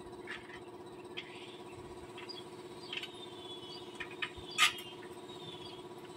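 2HP PowerStar air compressor running with a steady hum, overlaid by faint high squeaks and a sharp click about four and a half seconds in.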